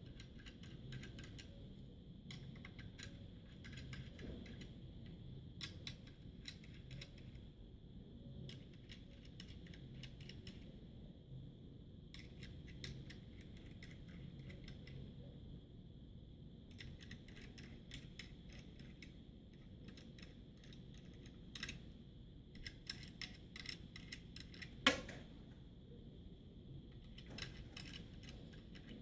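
Small metal nuts being threaded onto bolts and handled on a board: faint, rapid clicking and light metallic rattling in clusters, with one louder click near the end.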